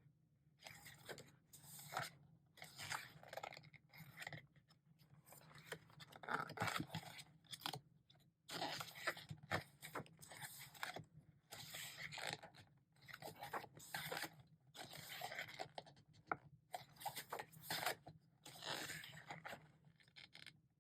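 Pages of a K-pop album's photo book being handled and turned, with soft, irregular paper rustles and scrapes about once a second.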